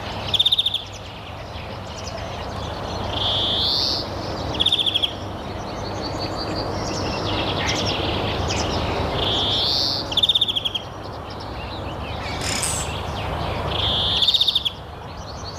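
A bird singing the same short phrase four times, about every four to five seconds: a rising slurred whistle followed by a fast trill. A steady hiss of background noise runs beneath.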